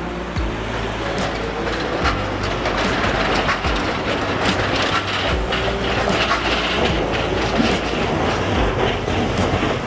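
Hiroshima Electric Railway 3800-series articulated tram No. 3808 passing on street track, its running gear humming and its wheels clicking over rail joints.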